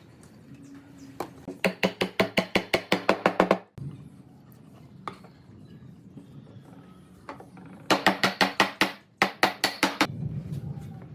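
Two quick runs of sharp knocks, about seven a second, each run lasting a second or two with a short gap inside the second, over a low hum.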